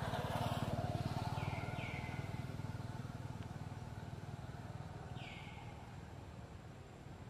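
Motorbike engine passing by, loudest in the first second or two and then fading away.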